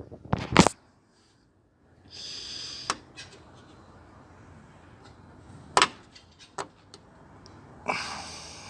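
Hands-on work on a car door: sharp clicks and knocks of parts being handled, the loudest a pair of knocks under a second in, with two short hissing rustles, one at about two seconds and one near the end.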